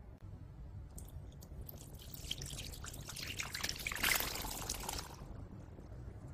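Boiled green peas and their cooking water poured from a glass bowl into a food processor bowl: a few clinks about a second in, then a spattering, splashing pour that builds to its loudest about four seconds in and stops about a second later.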